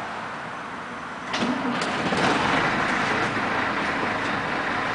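Inside a 1996 Scania CN113CLL city bus standing at a stop: a low hum, then two sharp clunks a little over a second in, followed by a louder, steady rushing noise.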